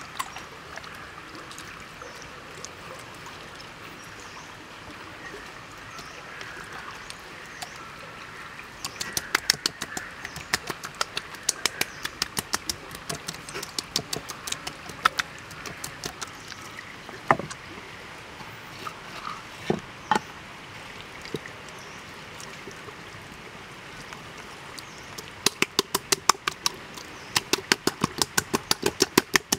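Wet slapping and squelching of hands rubbing marinade into a whole raw chicken, in quick runs of sharp smacks about four or five a second, starting about nine seconds in and again near the end, with a couple of single knocks in between. A steady rushing noise sits underneath.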